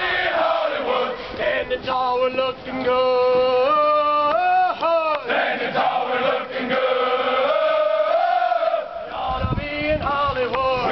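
Marching recruits chanting a military-style marching cadence in unison: many men's voices singing held, stepped notes in short phrases.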